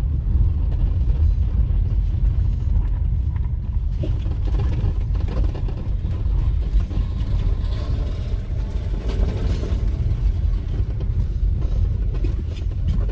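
A vehicle on the move along a road, a steady low rumble of engine, tyres and wind.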